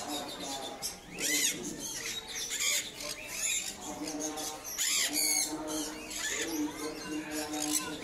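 Many caged birds chirping and squawking together in short, sharp, high calls, the loudest about a second in and around five seconds in.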